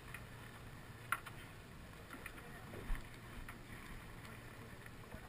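Boat-deck ambience on open water: a low steady hum with a faint wash of wind and water, broken by a sharp click about a second in and a knock about three seconds in.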